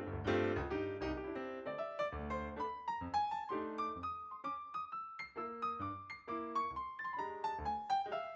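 Background piano music: a gentle melody over chords, with the tune rising and then falling.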